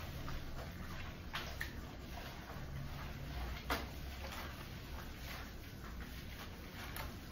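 Hands working shampoo lather into a wet dog's curly coat: soft wet squishing with a few short sharp clicks, the loudest a little past the middle, over a low steady hum.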